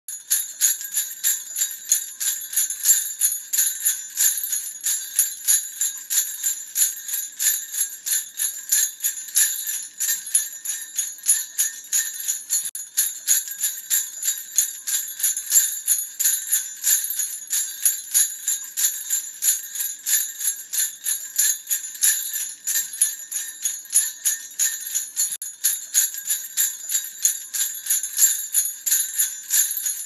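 Jingle bells shaken continuously in a quick, even rhythm, a bright metallic jingling.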